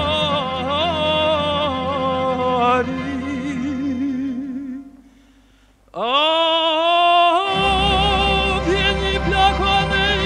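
Background music with a wavering, singing-like melody. It fades out about halfway through, and a new piece begins a second later with a note sliding up into a long held tone, joined by a steady low bass.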